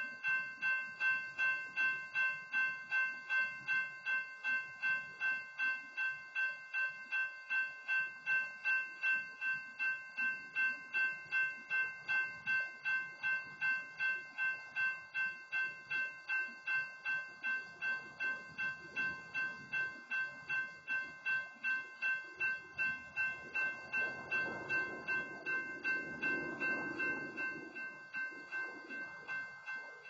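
Railroad grade-crossing warning bell ringing steadily at about two strokes a second while a stopped freight train occupies the crossing. A low rumble swells and fades near the end.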